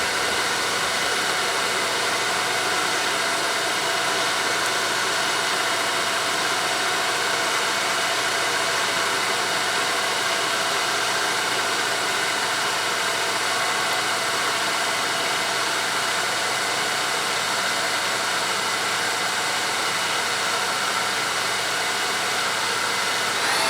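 Spindle of a Top One 3-axis CNC bed mill running steadily at 1,000 RPM: an even mechanical hum with several steady tones.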